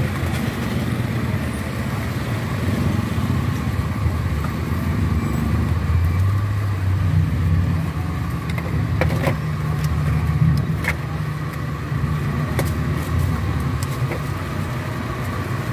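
A motor running steadily with a low hum that shifts slightly in pitch, and a few light clicks and knocks scattered through it.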